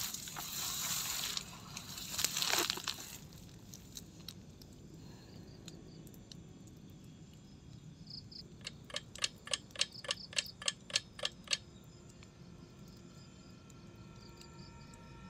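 Rustling of tent and bedding fabric as a person settles down inside a small dome tent, loudest in the first three seconds. Then a quiet night background with faint insect chirps, broken about halfway through by a run of about a dozen sharp clicks, about four a second.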